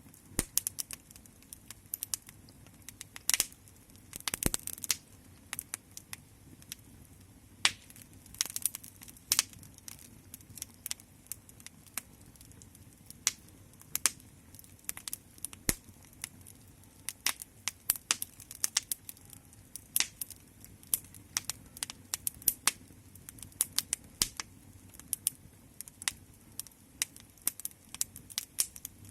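Wood fire crackling: irregular sharp pops and snaps, often several a second, over a steady low rush of the flames.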